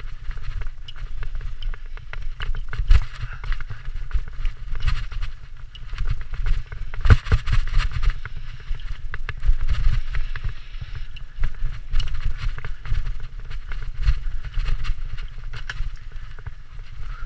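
Mountain bike ridden fast down a dirt trail: tyres rolling over dirt and dry leaves, and the bike rattling and knocking over bumps, with a low rumble of wind on the camera microphone. The sharpest knock comes about seven seconds in.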